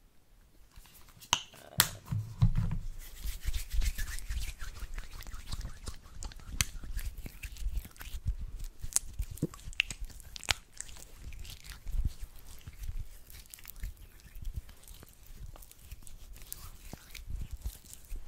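Lotion-covered hands rubbing together close to the microphone, a dense crackly rubbing that starts about two seconds in, after a couple of sharp clicks.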